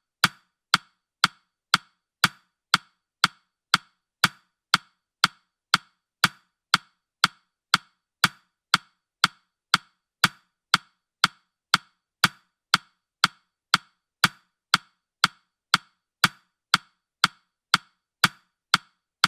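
Ticking sound effect of a countdown timer: sharp, identical ticks, evenly spaced at two a second.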